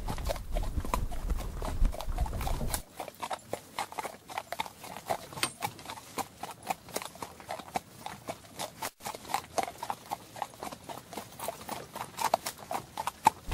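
Horse hooves clip-clopping on hard, stony ground: a steady, uneven run of hoofbeats. A low rumble underneath cuts off abruptly about three seconds in.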